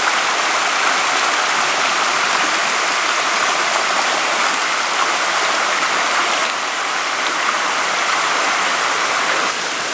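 Rushing water making a steady, even rush, dropping slightly in level about six and a half seconds in and again near the end.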